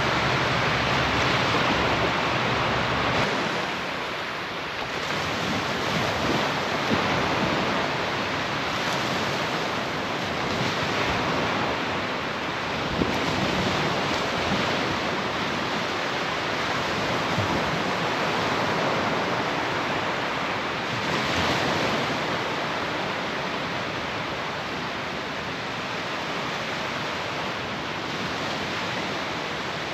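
Surf breaking and washing up a sand beach, a steady rushing that swells and eases every few seconds, with some wind on the microphone.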